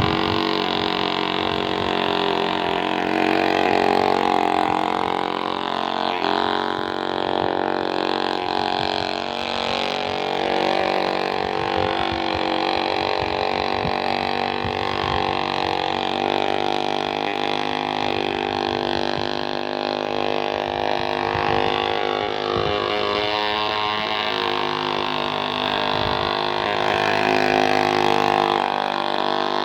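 Grass-cutter engine fitted to a model boat, running steadily with small rises and falls in pitch.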